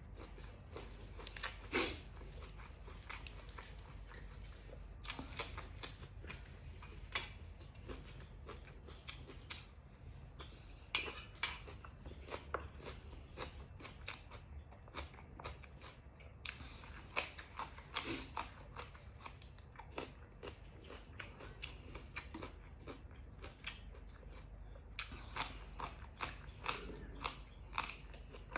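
A person chewing and crunching mouthfuls of nam tok moo, a spicy grilled pork salad, with raw vegetables. The crisp bites come in irregular clusters with quieter chewing between them.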